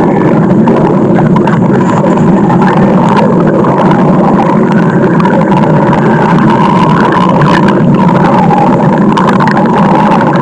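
A loud, continuous stomach growl: a deep, engine-like rumble that goes on without a break.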